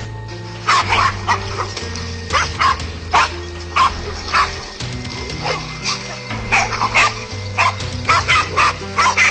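Several dogs barking at a snake in a rapid, uneven string of short, sharp barks, over background music.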